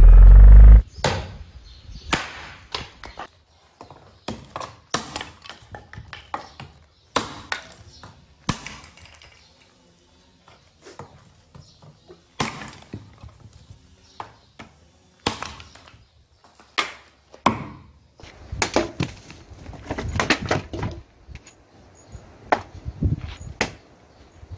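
Estwing hatchets chopping wood: a long run of sharp blows into branches and logs, unevenly spaced, coming thicker in the last few seconds.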